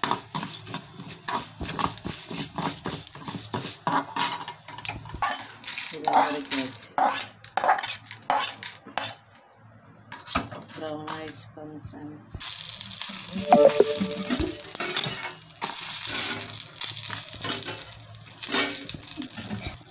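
Metal spoon stirring and scraping urad dal and cumin roasting in oil in a steel kadai, with frequent clicks and a light sizzle. About ten seconds in it goes quieter, with a few ringing metal clinks, then a steady sizzle of oil frying starts as dried red chillies, garlic and ginger cook in the kadai.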